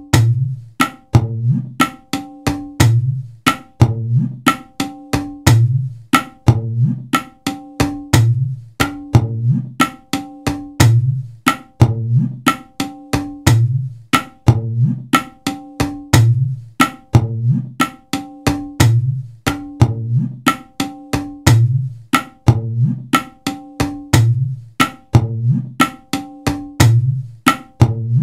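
Background music with a steady percussive beat: a deep drum about once a second under quick, clicky knocks and short pitched notes.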